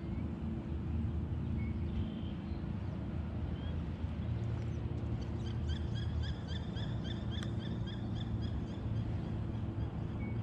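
A bird calling a quick series of short, high, repeated notes, about three a second, starting about halfway through and stopping about a second before the end, over a steady low hum.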